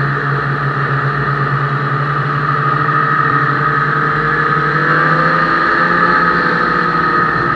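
Ski-Doo snowmobile engine and track running at a steady trail-riding speed, the engine note easing slightly about five seconds in and then picking back up.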